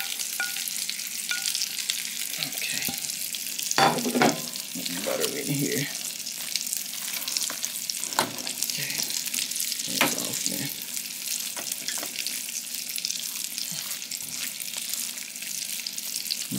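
Steady sizzle of food frying in a hot pan, with a spoon stirring in a pot and knocking or scraping against it a few times as butter, lemon zest and fresh dill are mixed into cooked rice.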